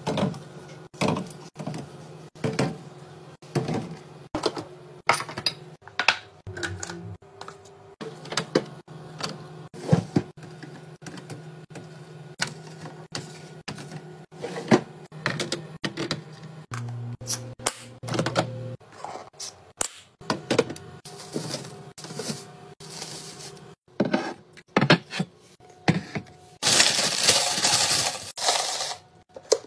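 Repeated clinks, knocks and clunks of bottles being set down into a refrigerator's shelves and door bins. Near the end comes a rustling crinkle of potato chips poured from a bag into a plastic canister.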